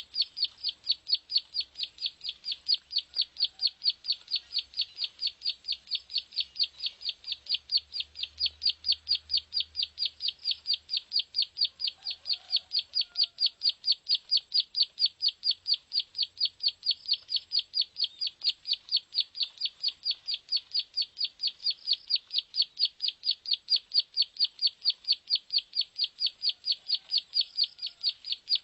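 Plain prinia (prenjak sawah) call, a high, sharp note repeated evenly at about three to four a second without a break, played as a lure to attract the birds.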